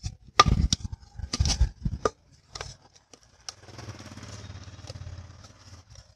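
Plastic bottle being cut with a small knife along a scored line. Sharp knocks and crackles of the thin plastic being gripped and turned come first, then a steady rasping buzz for about two seconds as the blade saws through the wall.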